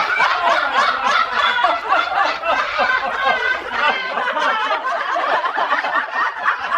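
Several people laughing together, overlapping voices laughing hard and without a break.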